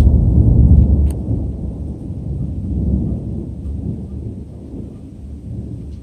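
Thunder rumbling deep and loud, dying away over several seconds with a smaller swell about three seconds in.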